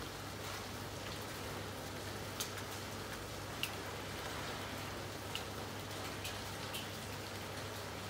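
Rain falling steadily, with a few single drops landing close by as sharp ticks over the even hiss.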